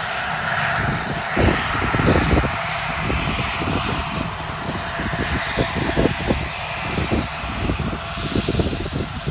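Gulfstream G650's twin Rolls-Royce BR725 turbofans running at low thrust as the jet taxis after landing: a steady jet hiss with a faint high whine. Gusty low rumble of wind on the microphone comes and goes underneath.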